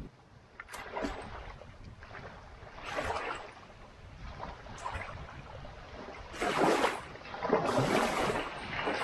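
Wind-driven lake waves washing up onto the shore in repeated surges, the strongest near the end, with wind rumbling on the microphone.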